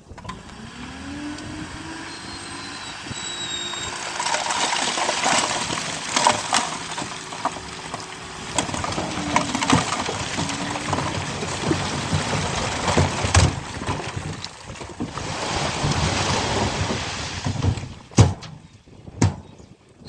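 A heavy diesel earthmoving machine's engine revs up about a second in and runs under load, with a rushing noise and scattered clanks of metal and material.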